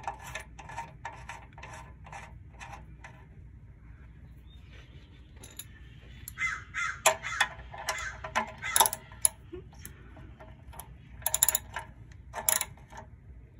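Socket ratchet wrench clicking in short runs as the oil drain plug is screwed back into the engine's steel oil pan. Louder, harsher short bursts come in the middle.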